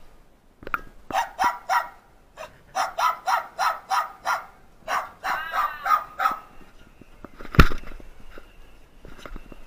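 Small pet dog barking in quick runs of short barks, with a drawn-out whining yelp in the middle. A single loud thump comes about three-quarters of the way through.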